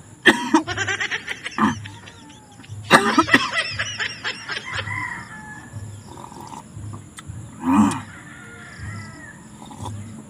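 Goat bleating twice, each a quavering call of about a second, the first right at the start and the second about three seconds in, with fainter calls after.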